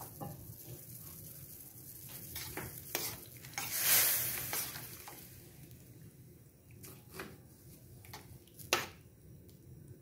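A spoon stirring liquid in a stainless steel wok, with scraping and clinks against the pan. There is a louder swishing swell about four seconds in and a sharp clink near the end.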